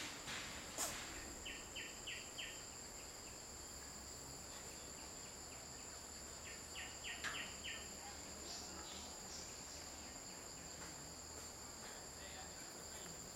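Steady high-pitched drone of insects running throughout. Two quick runs of four or five short, high, evenly spaced calls come about 2 s and 7 s in. A single sharp click sounds just under a second in.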